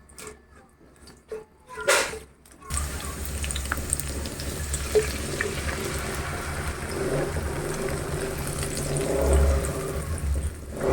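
A few light knocks, then water starts running steadily from a tap about three seconds in.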